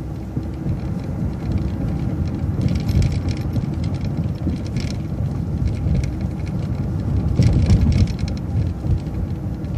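City transit bus driving, heard from inside: a steady low engine and road rumble, with a few short hissy, rattly moments, the loudest near the end.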